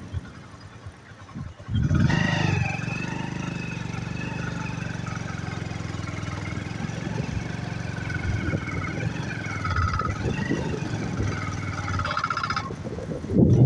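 Motorcycle engine running steadily, cutting in abruptly about two seconds in, its pitch wavering slightly with the throttle.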